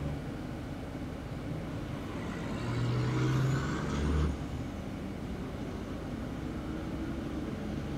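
Traffic at an intersection heard from inside a stopped car: engines idling with a low steady hum. A heavy truck passes through, growing louder from about two and a half seconds in with a rising whine, and the sound drops away sharply just after four seconds.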